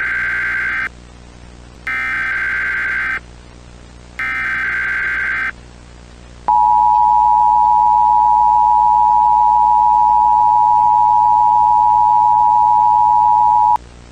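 Emergency Alert System alert tones. First the SAME digital header: three short blasts of buzzy data tones about a second apart. Then the steady two-tone EAS attention signal, louder, held for about seven seconds before cutting off near the end.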